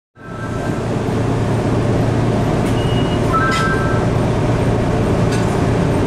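Steady low hum and running noise of a Hankai Tramway Mo 601-type tram standing at the platform, fading in at the start. A few short high beeps and faint clicks come through in the middle.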